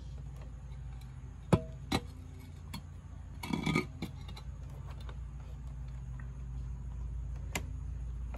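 Hard objects being handled: two sharp knocks about a second and a half in, a brief rattle of clinks around three and a half seconds, and one more click near the end, over a steady low hum.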